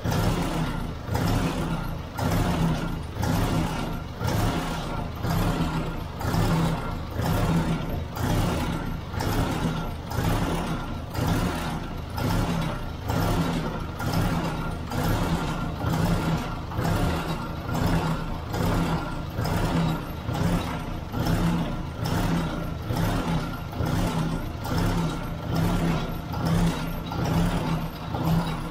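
Ford 600 tractor's four-cylinder gasoline engine idling on a newly fitted aftermarket carburetor, with an even rhythmic pulse in its running.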